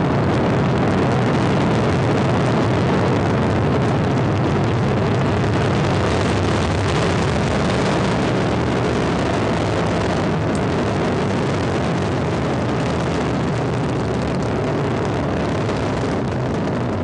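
Ariane 5 ECA rocket at liftoff, its two solid rocket boosters and Vulcain main engine giving a steady, deep roar that eases slightly toward the end.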